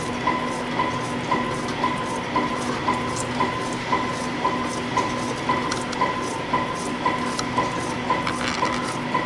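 CNC spring coiling machine (YHM CF-310-WD) running steadily and forming 0.2 mm wire conical springs. Its whir carries a regular click about twice a second, one per spring coiled and cut off.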